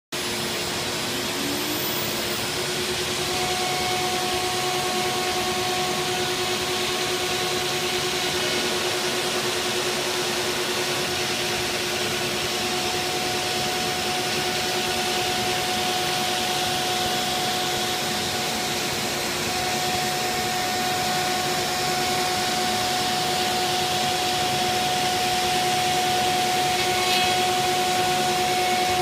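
MultiCam 3000 series CNC router cutting aluminum sheet with a vinyl overlay at a 120 inches-per-minute feed: a steady spindle whine over a constant rushing of air, with a second, higher tone joining about three seconds in.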